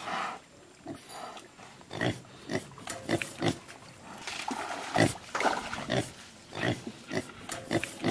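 Wild boar grunting repeatedly, short grunts at irregular intervals.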